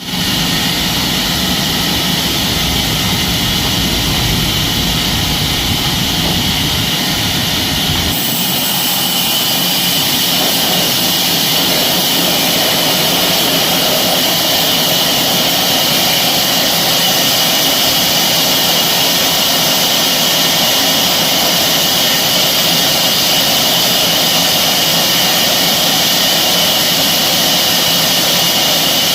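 Sawmill machinery running, likely a band saw cutting timber: a steady loud noise with a high hiss, which changes abruptly about eight seconds in, the low rumble dropping away.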